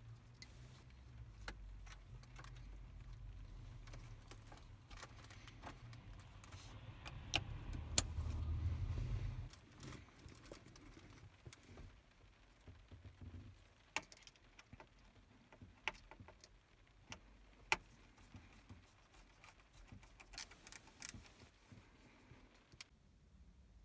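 Scattered sharp clicks and rattles of small hard parts being handled, under a low rumble that swells and then stops abruptly about nine and a half seconds in.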